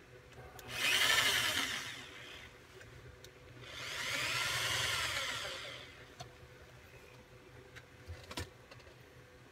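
Corded electric drill run twice, each time spinning up and winding down, as it bores two screw holes through thin bottle aluminum; the second run is longer.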